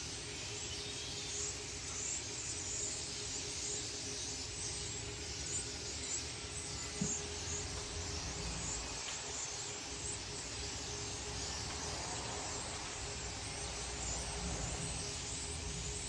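A flock of swallows twittering overhead, many short high calls overlapping, over a steady low background rumble.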